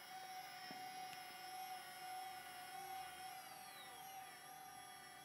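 Motors of an iOptron SkyHunter goto equatorial mount whining faintly and steadily as it slews to a target, with one high tone sliding down in pitch about three seconds in as a motor slows.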